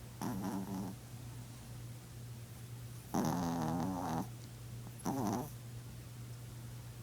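Chihuahua snoring in her sleep: three pitched snores, the longest and loudest about three seconds in, over a steady low hum.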